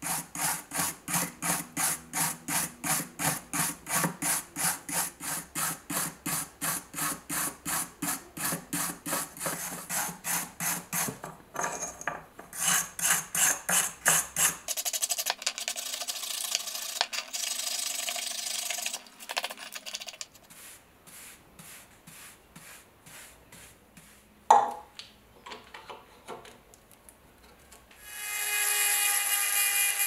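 A small wire brush scrubbing rust off a corroded pocket-knife blade: even back-and-forth strokes about three or four a second, then faster, denser scrubbing, then lighter strokes, with one sharp knock partway through. Near the end a high-speed rotary tool with a grinding bit starts and whines steadily.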